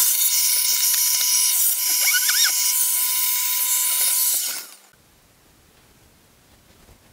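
Vacuum cleaner running, its hose nozzle sucking dust from a graphics card inside an open PC case. It is a loud, steady noise with a brief wavering pitch about two seconds in, and it stops about four and a half seconds in.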